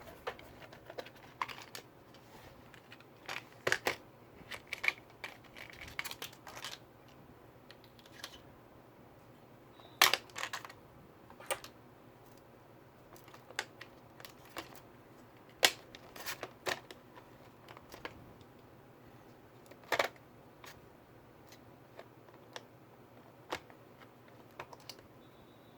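Irregular clicks and light taps of a laptop being handled and worked on by hand, with a few sharper clicks about ten, fifteen and twenty seconds in.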